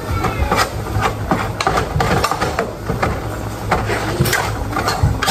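Irregular knocks and clinks of kitchen work, dishes and pots being handled, over a steady low hum.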